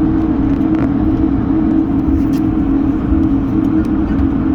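Steady cabin noise inside an Airbus A220 on the ground, a constant low drone with a steady hum running through it.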